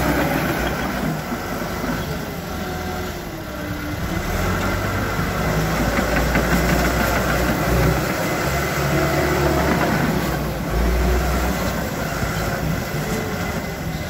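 John Deere 450J crawler dozer's diesel engine running, deep and steady.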